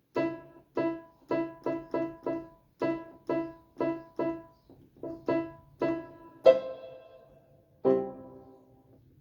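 Yamaha PSR-E series portable keyboard playing its piano voice with the reverb set to Hall 2: a quick melody of short notes, then two held notes that ring and fade slowly.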